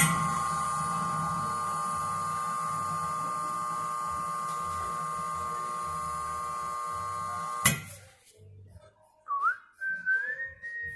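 Hat steamer's steam jet hissing with a steady whistling tone as a felt hat brim is steamed; it starts suddenly and cuts off after about eight seconds. A faint gliding whistle follows near the end.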